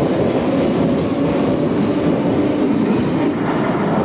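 London Underground tube train running out along the platform, a loud steady rumble and rattle of wheels and motors. The sound thins a little about three seconds in as the last car clears the platform.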